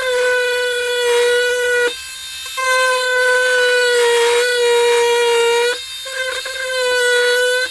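Oscillating multi-tool (vibration cutter) plunge-cutting notches into the soft, rubbery plastic of a bumper: a loud, steady high-pitched whine whose pitch sags slightly under load. It stops briefly twice, about two seconds in and again about six seconds in.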